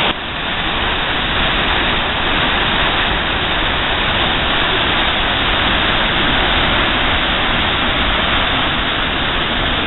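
Waterfall and rapids on a river in high water, a steady, loud rush of falling and churning water.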